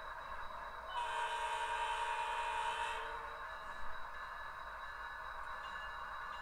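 HO-scale model diesel locomotive's sound decoder sounding its horn once, a chord of steady tones lasting about two seconds, over a steady background hum.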